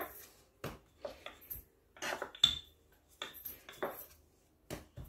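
Irregular light knocks and metallic clinks, about a dozen, as hands press a ball of bakpao dough flat on a wooden worktop, the metal bangles on the working wrist clinking as it moves.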